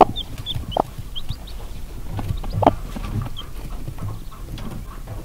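Icelandic hen giving a few short low clucks while her young chicks peep high and thin around her. The peeps come thick in the first second or so, then only now and then.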